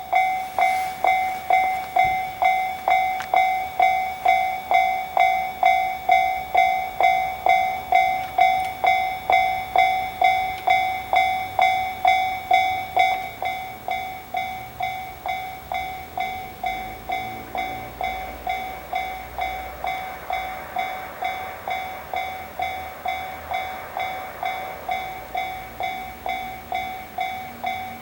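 Japanese railway level-crossing warning bell ringing steadily at about two strikes a second, dropping in level about thirteen seconds in. In the second half an E353 series limited express train's low rumble builds underneath the bell.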